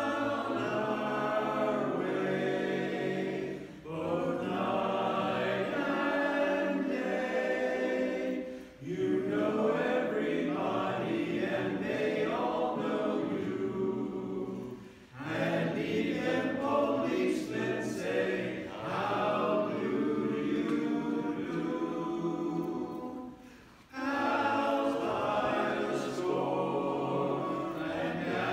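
Barbershop chorus singing a cappella in close harmony, in sustained phrases with brief breaks between them.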